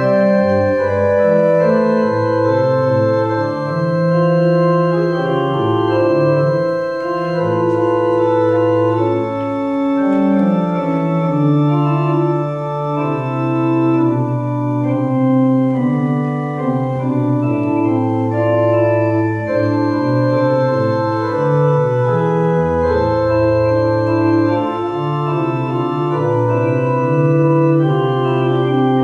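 Organ music: slow, sustained chords moving from one to the next every second or two, with a deep bass note sounding a little past the middle.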